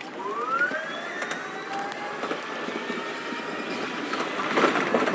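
Electric train pulling away, sped up fourfold: the traction motors' whine rises in pitch in several tones, then levels off into a steady whine. Near the end comes a louder rattle of wheels over points.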